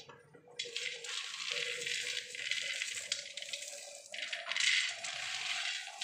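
Roasted peanuts rubbed and squeezed between the hands to loosen their papery skins: a dry rustling rattle of nuts and skins. It starts about half a second in, drops off briefly just after four seconds, then comes back louder.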